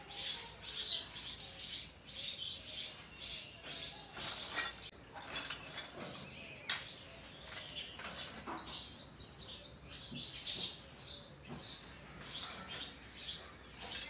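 Sparrow nestlings begging at the nest: a rapid, continuous stream of short, high cheeps while being fed, with a few brief clicks in between.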